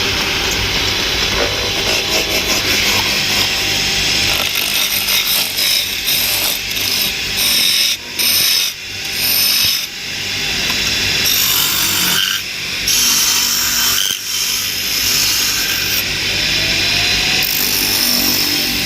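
Power woodworking machine cutting into wood, running loudly and steadily, with a few short breaks and changes in the cutting sound.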